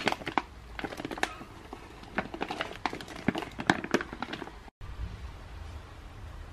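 Stiff vacuum-sealed plastic bag of frozen corn cobs crinkling and crackling as fingers handle and press it, in irregular sharp crackles, stopping abruptly after about four and a half seconds, followed by a low steady hum.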